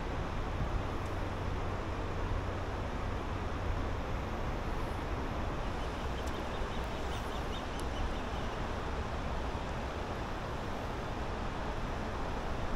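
Steady rush of a shallow river running over rocky shoals.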